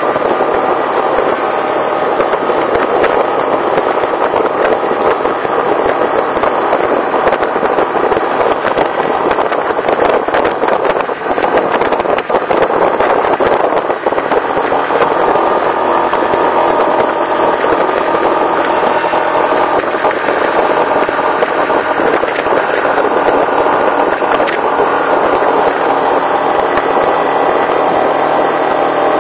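Yamaha Kodiak 450 ATV's single-cylinder four-stroke engine running steadily while riding along a gravel road, mixed with the noise of the tyres on gravel.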